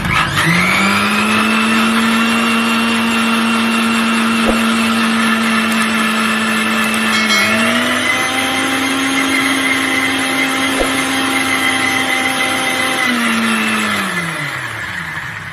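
Electric mixer-grinder with a stainless-steel jar running, grinding coconut flesh with sugar and a little coconut water: the motor starts with a rising whine and runs steadily. About halfway the pitch dips briefly and settles a little higher; near the end it is switched off and winds down with a falling whine.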